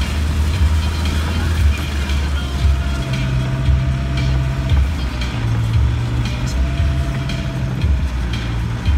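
Land Rover diesel engine running at low speed on a rough track, heard from inside the cab; the engine note steps up and down a few times as the throttle changes. A faint steady whine sits above it from a couple of seconds in.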